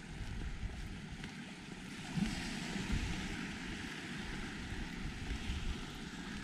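Wind buffeting the microphone in uneven gusts, over a broad steady hiss that swells a little about two seconds in.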